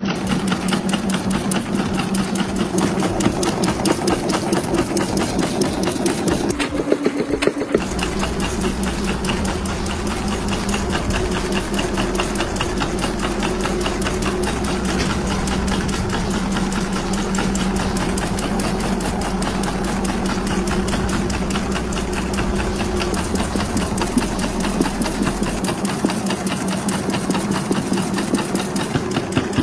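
Automatic agarbatti (incense stick) making machine running: a fast, even mechanical clatter over a steady motor hum as it extrudes masala coating onto the sticks. A deeper hum comes in about eight seconds in and stops near the end.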